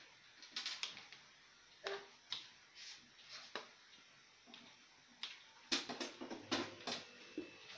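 A metal spoon clicking against a plastic mixing bowl while raw egg with chopped tomato and onion is stirred, in irregular knocks that come faster and closer together near the end.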